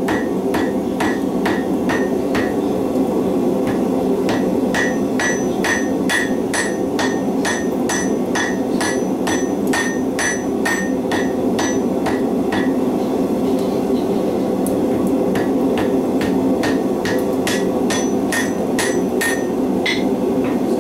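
Hand hammer striking the white-hot end of a steel wire cable on an anvil, forge-welding the strands together. The blows come evenly at about two to three a second, each with a short bright ring, in three runs broken by two short pauses. A steady low hum runs underneath.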